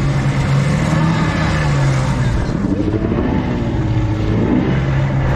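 Suzuki outboard motor running on a small fishing boat under way, a steady low drone that weakens and wavers about halfway through, over water rushing and splashing along the hull as the net is paid out.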